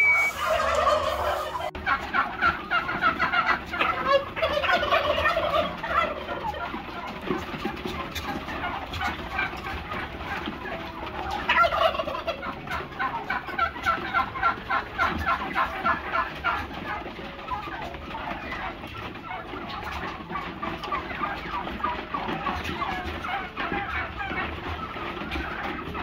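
A large flock of domestic turkeys gobbling, many birds calling at once in overlapping, rapidly repeated gobbles that go on without a break.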